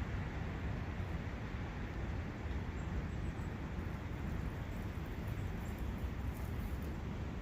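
Steady rushing of wind and a forest brook, heaviest in the low end, with a few faint high chirps partway through.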